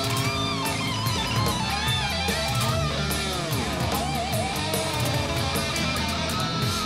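Rock music: an electric guitar lead with bending notes over a steady drum beat.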